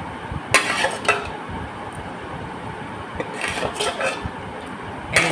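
A metal spoon clinking and scraping against a bowl while stirring milky vermicelli: a few sharp clinks spaced out over a steady background hiss.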